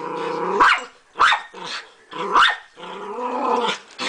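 Schnauzer barking at a rabbit through a window: about four sharp barks, with longer drawn-out growls between them.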